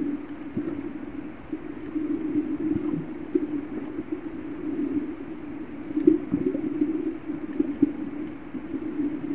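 Muffled underwater noise picked up by a camera in its underwater housing: a steady low hum with scattered clicks and knocks.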